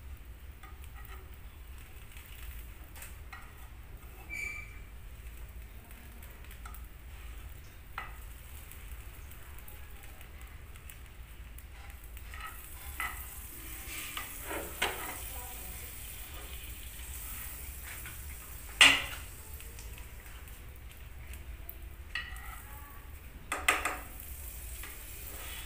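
Sandwich toasting in a nonstick frying pan: faint sizzling, with scattered scrapes and taps of a metal spatula and knife on the pan. One sharp, loud clatter of utensil on pan about three quarters through, and a few more knocks near the end.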